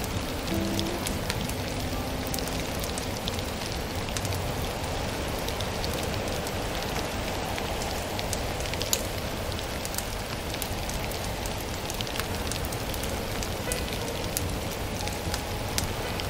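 Wood fire crackling, with scattered sharp pops over a steady hiss like rain.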